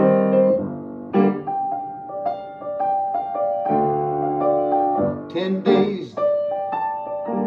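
Yamaha grand piano played, struck chords and a sustained melody line in a song accompaniment. A brief vocal sound from the player comes about five and a half seconds in.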